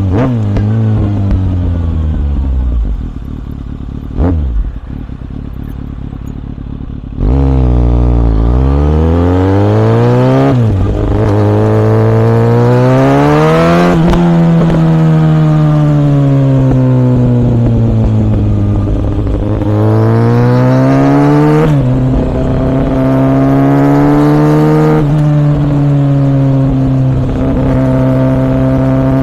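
2014 Kawasaki ZX6R 636 inline-four through a Yoshimura R77 exhaust, heard onboard while riding. The revs fall as it slows, then it runs quieter with one short throttle blip. About seven seconds in it pulls away hard, the revs rising and dropping at several upshifts before it settles into a steady cruise.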